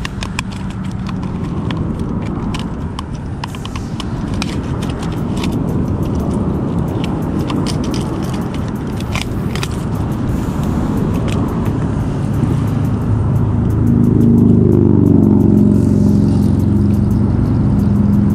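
Steady low rumble of a motor vehicle or road traffic, growing louder with a steady engine hum about two-thirds of the way in. Over it come many sharp clicks and crinkles of the plastic packaging of a fishing lure being opened and handled.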